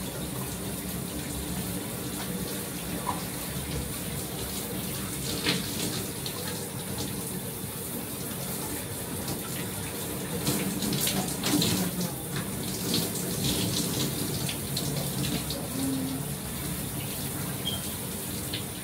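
Shower running: a steady hiss of spraying water, with scattered splashes and knocks that come thickest about ten to fourteen seconds in.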